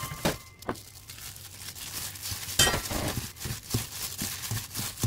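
Gloved hand tossing sliced old cucumber with seasoning in a stainless steel bowl: irregular crinkling of the thin plastic glove and the slices shifting against the steel, with one louder sharp sound about two and a half seconds in.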